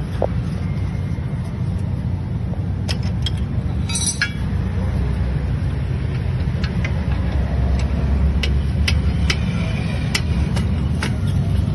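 Metal tools clicking and clinking against a motorcycle's stock exhaust clamp and silencer as it is unbolted, over a steady low rumble.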